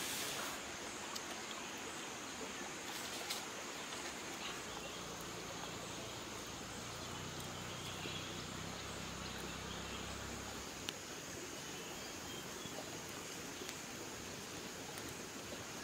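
Outdoor ambience: a steady hiss under a continuous high-pitched insect drone, with a few faint clicks and a low rumble for a few seconds in the middle.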